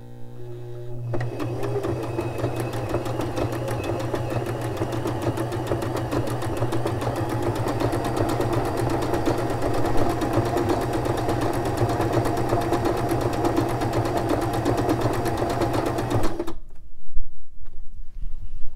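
Domestic sewing machine sewing a stretch stitch through a folded stretchy knit fabric sample. It speeds up over the first second, runs steadily for about sixteen seconds, then stops, followed by a few rubbing and handling noises.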